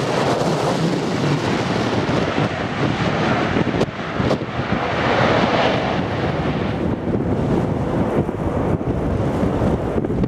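Strong wind buffeting the microphone, a dense rushing noise. About four seconds in, a brighter rush swells and then fades near seven seconds.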